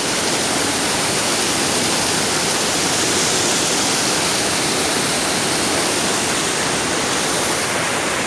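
Waterfall: water pouring and splashing in a steady, loud rush.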